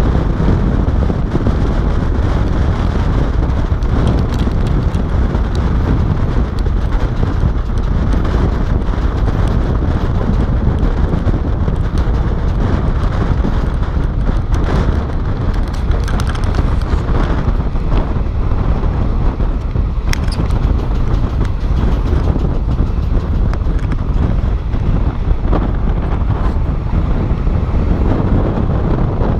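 Passenger train running at speed, heard from an open carriage window: a steady rumble of wheels on the rails mixed with wind buffeting the microphone.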